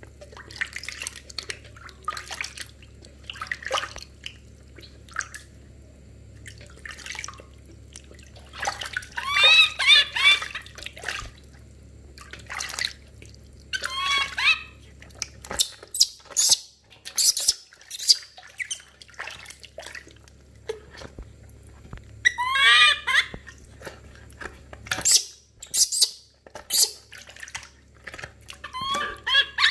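Baby monkey crying in several short bouts of high-pitched wavering calls, amid the splashes and drips of water as it is washed in a basin.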